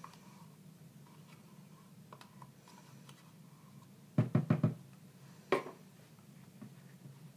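Four quick knocks in a row, then a single knock about a second later: a small colorant cup and spoon knocked against a plastic cup and set down on the table while colorant is mixed into soap batter.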